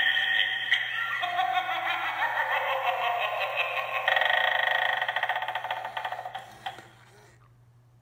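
Animated eyeball doorbell prop playing its spooky voice-like sound effect through its small speaker, thin and tinny with almost no bass, fading out about seven seconds in.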